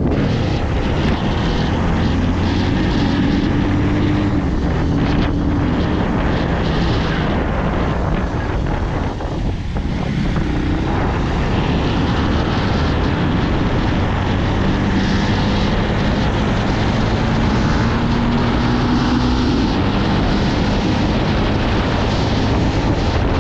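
Motorcycle engine running at speed on the road, its pitch rising and falling gently with the throttle, under a steady rush of wind on the microphone.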